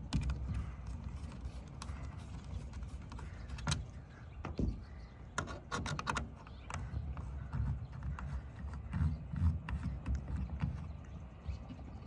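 Scattered clicks and taps of a truck's roof antenna being swapped: the long stock mast is unscrewed and laid down, and a short stubby antenna is threaded onto the roof base, with a quick run of clicks about halfway through. A steady low rumble lies underneath.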